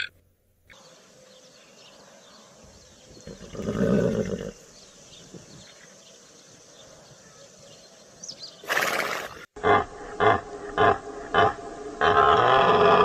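Horses calling outdoors: a loud low call about four seconds in and a breathy blast, like a snort, near nine seconds. Then a bull elk calls: a run of about six short, sharp calls followed by a longer, loud call near the end.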